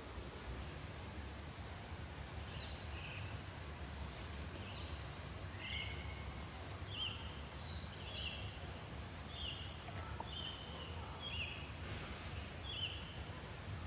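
A bird calling with a short, high, falling chirp, repeated about once a second from a few seconds in, over a steady low hum.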